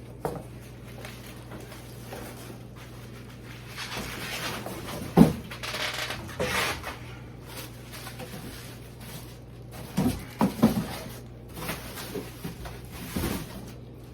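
Handling noise from unpacking the honey extractor's legs: a few sharp knocks and clunks, a cluster of them about ten seconds in, with rustling of packing material in between.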